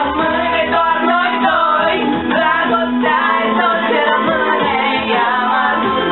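A song with female voices singing over musical accompaniment, continuous and loud, with drawn-out sung notes.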